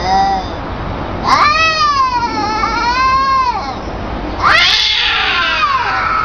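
Cats yowling at each other in a fight standoff: long, wavering howls, one lasting about two and a half seconds, then another starting past the middle and still going at the end, where two voices overlap.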